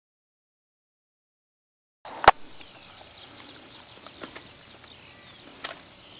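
Dead silence for about two seconds, then a sharp click. After it comes open-air background with many birds giving short, high chirps that mostly fall in pitch.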